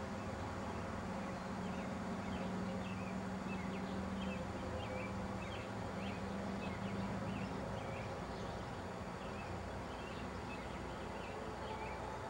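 Outdoor ambience of small birds chirping in quick short calls over a steady hiss, with a low hum that fades out a little past the middle.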